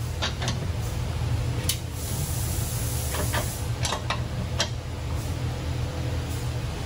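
Scattered light metal clicks of a combination wrench working a rear suspension adjustment bolt during a wheel alignment, over a steady low shop hum.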